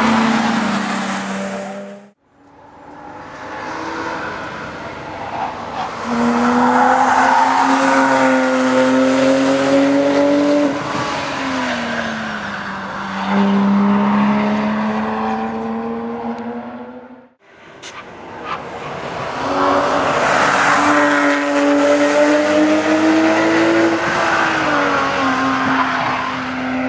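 Porsche 997 GT3 RS naturally aspirated flat-six engines pulling hard through a bend on the track, three cars in turn, each note swelling as the car nears. Within each pass the engine pitch climbs steadily, dips briefly, then holds, and the sound cuts off abruptly twice between cars.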